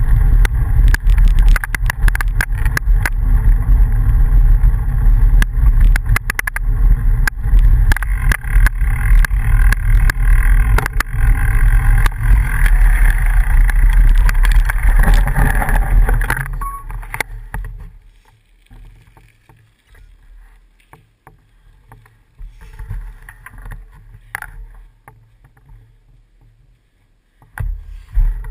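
Bicycle ride on a gravel dirt road heard through a bike-mounted action camera: a loud, steady rumble of wind and road vibration with constant crackle from the gravel. About 17 seconds in it drops away suddenly to faint, scattered crackle, and near the end gloved hands bump against the camera.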